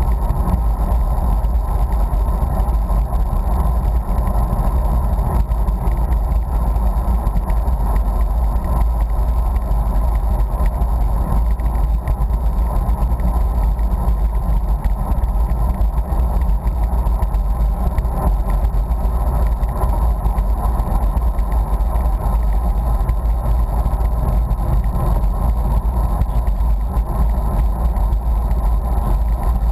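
Steady rumble of wind buffeting the microphone of a camera carried along on a bicycle riding at speed.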